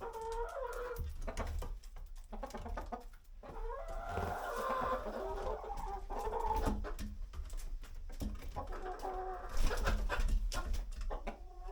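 Domestic hens clucking and murmuring, with a brief louder scuffle about ten seconds in.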